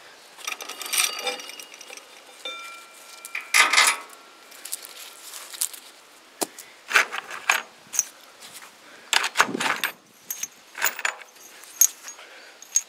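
Steel roller drive chain rattling and clinking in irregular bursts as it is handled and pulled off a go-kart's engine and axle sprockets, with a metal piece ringing briefly about a third of the way in.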